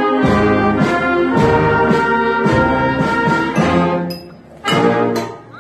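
Wind band playing: brass and clarinets in loud held chords with crisp accented entries, breaking off briefly twice near the end between phrases.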